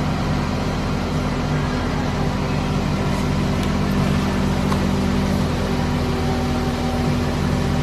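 Truck engine idling, a steady low drone that does not change.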